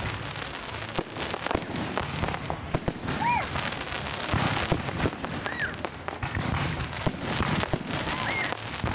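Fireworks display: a dense, irregular run of bangs and crackling bursts. A few short whistles rise and fall in pitch about a third of the way in, past the middle, and near the end.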